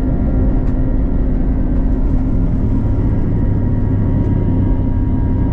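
Airbus A321-211's CFM56 turbofan engines at takeoff power, heard inside the cabin beside the wing during the takeoff roll. A loud, steady rumble carries several steady engine tones, and the low part of the rumble grows stronger about halfway through. Two faint clicks come through, about a second in and near the end.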